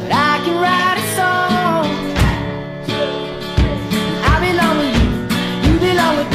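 Background song: a voice singing over guitar with a steady beat.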